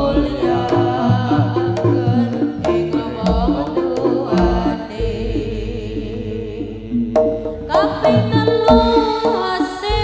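Amplified Javanese jaranan gamelan music: drum strokes and struck metal gong tones under a wavering melody line. From about halfway through, the drumming drops out for a couple of seconds, leaving long ringing tones and a low gong drone, and the full ensemble comes back in shortly before the end.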